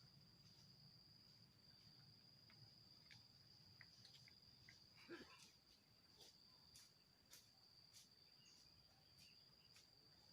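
Faint insect chirring, most likely a cricket, holding one steady high-pitched tone, with scattered faint clicks and a brief faint sound about five seconds in.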